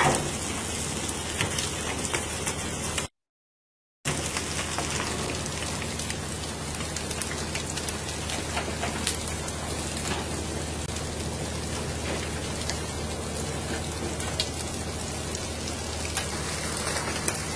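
Steady hiss of water splashing and spraying along a fishing boat's hull, with a low steady engine drone underneath and scattered sharp taps. The sound drops out completely for about a second, some three seconds in.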